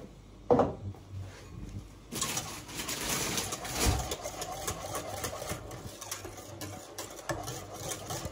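Wire whisk stirring semolina into hot milk in a stainless-steel saucepan: quick, repeated scraping and clinking strokes against the pan, starting about two seconds in. Before that, a short quiet stretch holds one brief loud knock.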